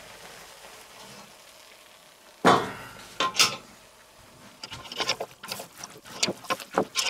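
Stainless steel goulash kettle clanking loudly about two and a half seconds in as it is taken off the tripod hook and put down, with a second ringing metal clank just after. Then a wooden spoon scrapes and knocks in the pot as the browned beef and vegetables are stirred.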